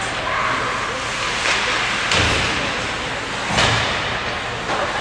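Ice hockey game in an arena: a steady din of play and crowd, broken by about three sharp thuds and slams a second or so apart.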